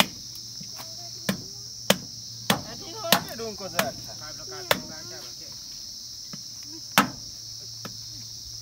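A blade chopping into meat and bone: sharp strikes at irregular intervals, six in quick succession about every half second, then a gap and one more near the end. Steady high chirring of crickets runs underneath.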